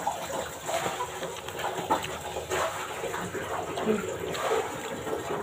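Spoon and fork clinking and scraping against a bowl as meatballs in broth are cut and scooped, with wet eating sounds between the clicks.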